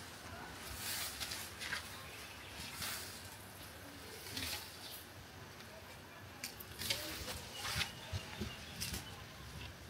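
Leaves and stems of an African basil plant being handled by hand: irregular rustling and crackling, with a few sharper clicks around seven seconds in.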